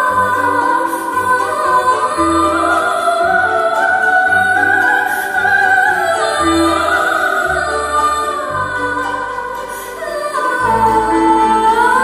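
Live performance: a female singer holding long, high operatic notes in a wordless melody that slides from note to note, accompanied by cello, piano and bowed strings over a low bass line.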